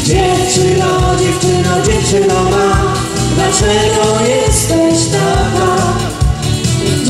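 Live band music: a Roland keyboard and an electric guitar playing over a steady drum beat, with a melody line on top.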